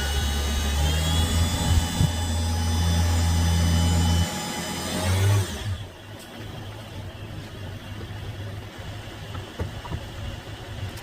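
2007 Ford Transit's starter motor cranking the engine for about five seconds: a steady drone under a whine that rises as it spins up, a brief surge near the end, then it cuts off. The engine does not catch; the battery is weak and flat even on jump leads.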